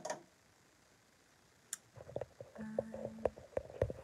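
Light clicks and taps from handling something small. They start about two seconds in, after a quiet stretch, and a short steady low hum sounds among them.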